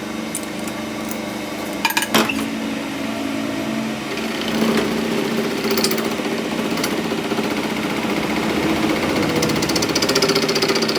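Workshop power tool running steadily with a held hum, two sharp knocks about two seconds in, then a fast, even rattle from about four seconds in.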